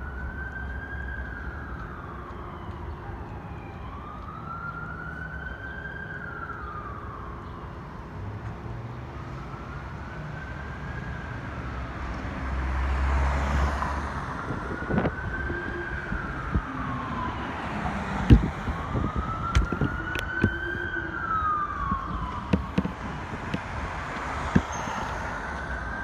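An emergency siren wailing in slow rising-and-falling sweeps, about one every four to five seconds. A low rumble comes in about halfway through, and knocks and clatter are scattered through the second half.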